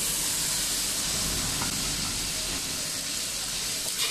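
Steady sizzling hiss of green beans frying in a hot wok, with no stirring strokes.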